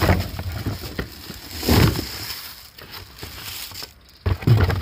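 Packaging rustling and crinkling, with handling knocks, as a cordless rotary hammer drill is lifted out of its box. There are a few irregular bursts, the loudest about two seconds in, and another near the end.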